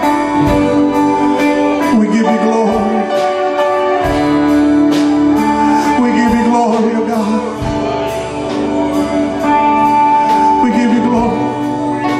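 Live church worship band playing a slow song, with electric guitar, drums and keyboard, and a lead singer holding long notes over it.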